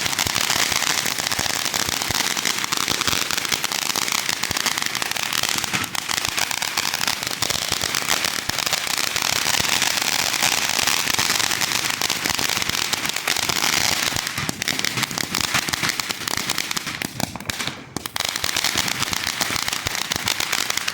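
Fireworks going off in a dense, continuous rapid crackle of tiny bangs, thinning briefly near the end before carrying on.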